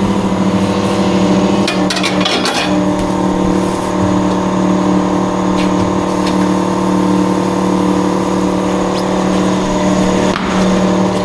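Tyre-changing machine running as its turntable rotates the wheel to work the tyre's inner bead off the alloy rim, a steady motor hum with a brief clatter about two seconds in.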